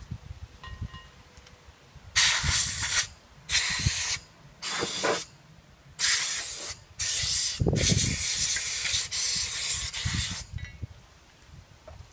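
Hissing spray let off in about six short bursts, the last one the longest, at about three seconds.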